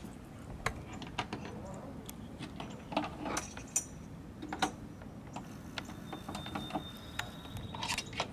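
Scattered light clicks and taps as the hooks of a bungee hold-down strap are handled and hooked onto the deck-mounted corner brackets.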